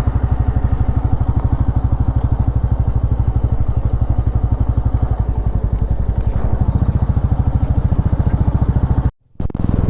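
Royal Enfield Meteor 350's single-cylinder engine running steadily under way, a rapid even exhaust beat; the sound cuts out briefly near the end.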